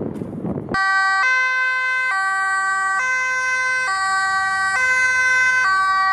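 Two-tone ambulance siren on a Maxilance evacuation bus, starting abruptly under a second in and alternating steadily between a low and a high tone about once a second.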